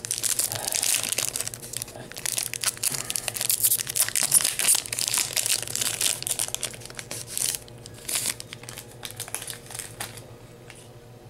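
Foil wrapper of a Yu-Gi-Oh booster pack crinkling and being torn open by hand: dense crackling for about seven and a half seconds, then fainter scattered rustles.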